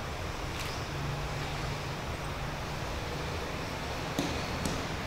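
Steady outdoor background noise with a low hum underneath. A few short, faint clicks come about half a second in and twice more near the end.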